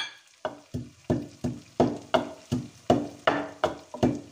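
Pestle pounding whole spices (coriander seeds, cumin and fenugreek seeds) in a wooden mortar to crush them coarsely. The strikes are steady, about three a second, each a dull knock with a short woody ring, and they start about half a second in.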